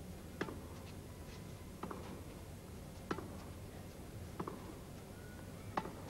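Tennis ball struck back and forth in a rally: five sharp racquet pocks, one about every second and a half, over a faint steady low hum.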